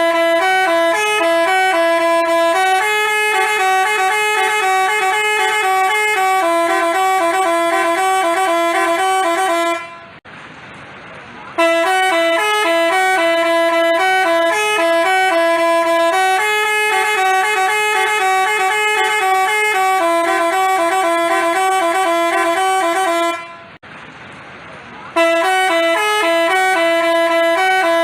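Telolet basuri musical bus horn playing a stepping tune of clear, held notes. The tune is cut twice, about ten seconds in and again near the end, by a second or so of faint hiss before it starts again.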